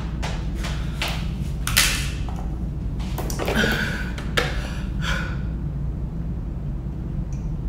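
A person's quick, hard breaths about twice a second, huffing through a napkin against the burn of very spicy noodles. A few seconds in come the handling knocks and rustle of a paper almond-milk carton being picked up. A steady low hum runs underneath.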